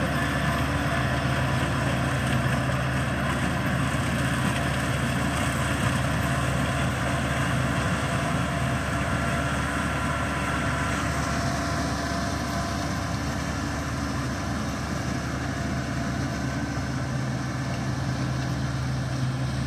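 Kubota 135 tractor running steadily while working a field, its engine hum mixed with the whirr of the maize-stalk shredder it drives. The higher-pitched part of the noise drops away about eleven seconds in.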